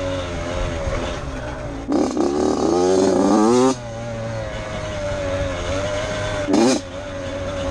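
Dirt bike engine running under way on a trail. The throttle opens about two seconds in and the pitch climbs for a second and a half before dropping back to a steady note. Near the end there is a short sharp rev.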